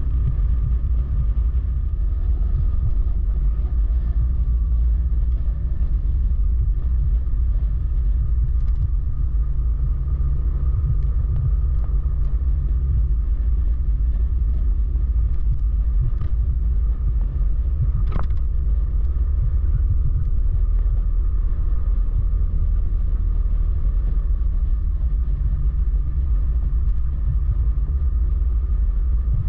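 Wind rumble on the microphone of a moving motorcycle, over the bike's steady engine note at town speed, with one short click partway through.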